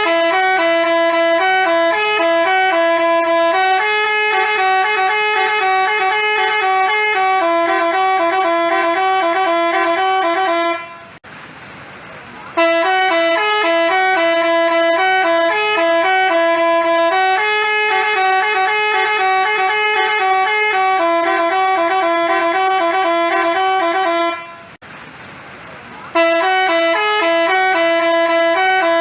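Basuri telolet multi-tone bus horn playing its melody: bright horn notes stepping up and down between a few pitches in a repeating tune. The tune breaks off briefly about eleven seconds in and again about twenty-five seconds in, then starts over.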